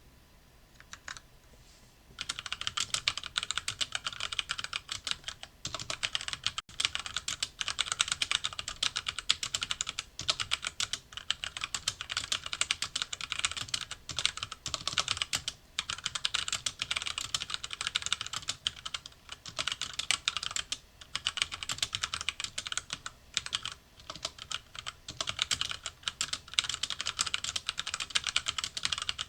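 HyperX Alloy Origins Core tenkeyless mechanical keyboard with HyperX Aqua tactile switches being typed on quickly. The typing starts about two seconds in and runs in fast runs of keystrokes broken by short pauses.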